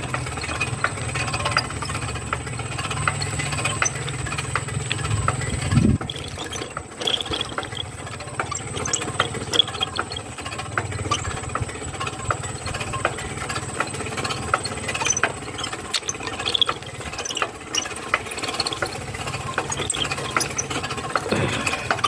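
A small engine running steadily, with rattling and clicking, and two brief rising surges, one about a quarter of the way in and one near the end.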